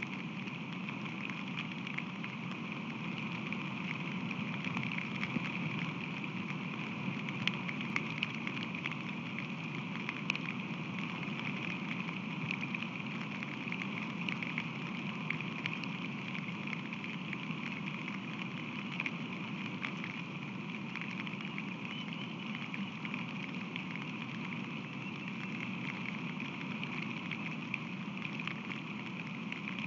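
Steady rain falling, with many small raindrop ticks scattered over an even hiss and a low steady hum underneath.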